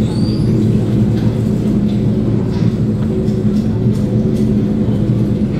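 Playback of underwater hydrophone recordings over loudspeakers: a loud, steady low hum with several evenly stacked tones, two faint rising chirps right at the start, and a few faint clicks.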